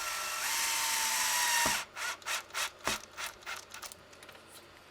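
Cordless power screwdriver driving a screw into an RC truck's chassis with a steady motor whine that cuts off about two seconds in, followed by a quick series of short clicks as the screw is snugged down.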